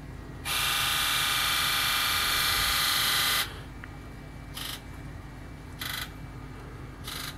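Ford Power Stroke diesel fuel injectors buzzing in a key-on, engine-off buzz test. They buzz loudly and steadily for about three seconds, then give three short buzzes a little over a second apart. The buzz is the sign that the injectors are firing electrically; all eight buzzed.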